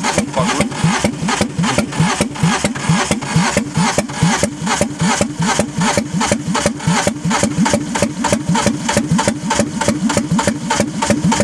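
Hyundai Coupé's four-cylinder engine being cranked over by its starter in an even rhythm of about five strokes a second, without catching, its crankcase filled with frying fat in place of engine oil.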